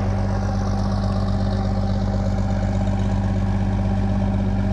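A motor running steadily at one unchanging pitch, a constant low hum with no let-up.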